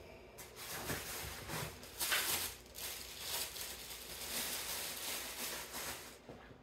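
Plastic packaging rustling and crinkling as a plastic-bagged charger is handled and lifted out of a cardboard box. It is loudest about two seconds in and dies away near the end.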